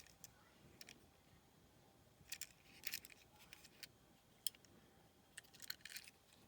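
Faint, scattered clicks and light rattles of diecast toy cars and plastic packaging being handled, with small clusters of taps in the middle and near the end.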